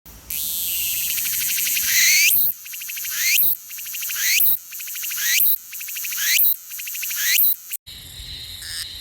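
A cicada singing in repeated phrases about once a second, each rising in pitch and breaking off sharply. Near the end it cuts to a different, evenly pulsing insect call.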